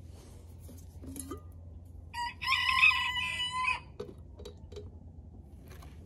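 A rooster crowing once, a single call of about a second and a half that starts about two seconds in.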